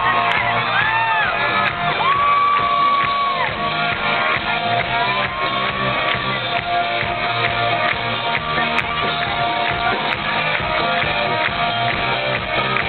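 Live rock band playing loud, with electric guitar and drums, and held, bending lead notes, heard from the audience, with some shouting from the crowd.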